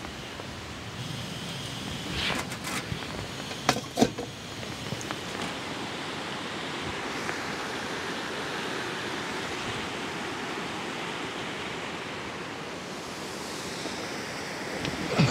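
Steady rushing hiss of water, with a few sharp clicks in the first four seconds.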